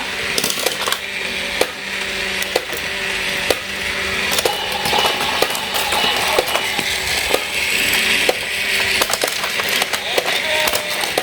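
Hard plastic toy pieces of a toy train and level-crossing set clicking and clattering in irregular knocks, over a steady low hum.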